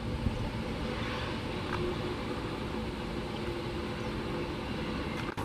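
Boeing 747-400's four jet engines at low thrust, a steady rumble and hiss with a faint hum, as the airliner slows on its landing rollout.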